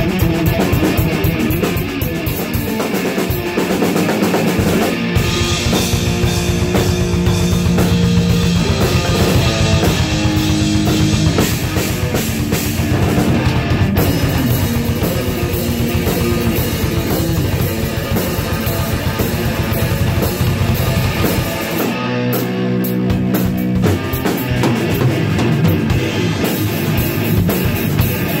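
Live heavy metal jam: a drum kit played fast and hard under an electric guitar holding and changing notes. About 22 seconds in, the drumming thins out for a moment of held notes, then picks up again.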